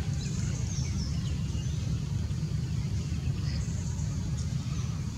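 Steady low rumble of outdoor background noise, with faint high chirping now and then.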